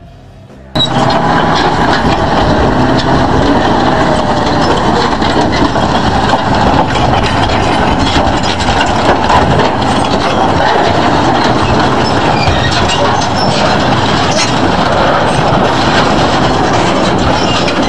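Armoured tracked bulldozer running hard, its tracks and blade clattering as it crushes a car: a loud, dense mechanical din with scattered clanks that starts abruptly about a second in.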